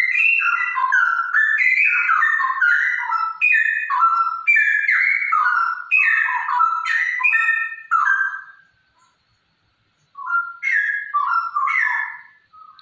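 Female straw-headed bulbul (cucak rowo) singing a long run of loud, rich, fast-changing whistled notes. It breaks off about nine seconds in and starts a shorter phrase a second and a half later.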